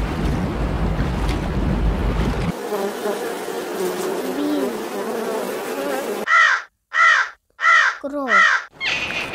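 A low rumbling noise, then from about two and a half seconds in a flying insect buzzing steadily, then near the end a crow cawing four times in quick succession, each caw rising and then falling in pitch.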